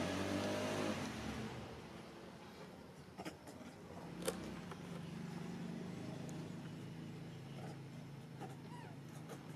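A motor vehicle's engine running and fading away over the first second or so, leaving a faint low hum with a few sharp clicks.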